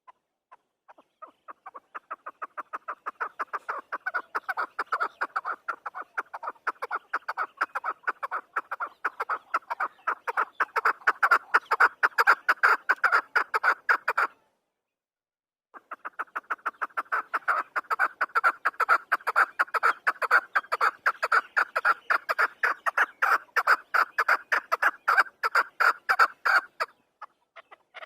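Chukar partridge (chakor) calling: a long run of rapid, repeated chuck notes that grows louder and breaks off suddenly about halfway through, then a second run after a short pause.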